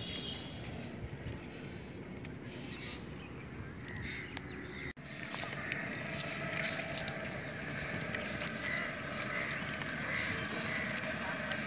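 Outdoor ambience with faint rustling and small clicks as a nylon cast net is handled by hand on a muddy bank.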